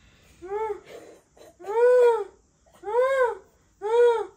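Newborn baby crying: four short wails about a second apart, each rising and falling in pitch, the second the loudest.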